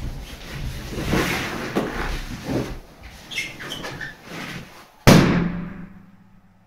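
Latex balloons rubbing and squeaking under a person's weight as they climb onto the balloon column, then one sudden loud balloon pop about five seconds in.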